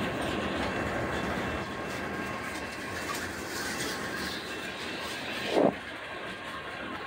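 Freight cars of a manifest train rolling past: a steady rumble and clickety-clack of wheels on rail. A single loud thump stands out about five and a half seconds in.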